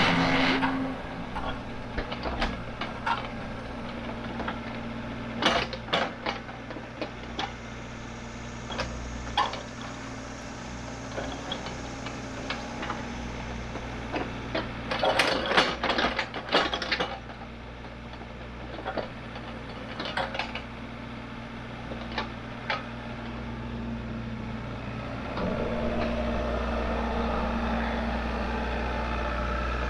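An engine idling steadily, with scattered clicks and clanks over it and a quick cluster of them about halfway through. Near the end the engine's note rises and grows louder.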